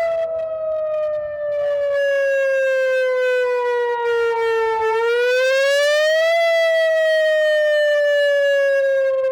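Outdoor civil-defense warning siren sounding a loud wail during a test: a tone that slowly falls in pitch, rises again about five seconds in, then falls once more. It grows louder about two seconds in as the rotating siren turns.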